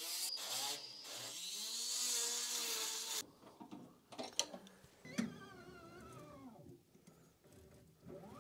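Handheld rotary tool drilling into the sheet-metal case of a K40 laser cutter, its motor note wavering as the bit bites, then cutting off sharply about three seconds in. Fainter wavering tones follow.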